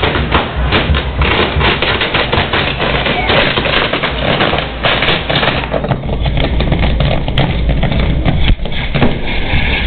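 Fireworks on a festival tower (castillo) going off: dense, rapid, irregular crackling and popping with sharp bangs, thinning out after about six seconds into a hiss of sparks. Crowd voices sound underneath.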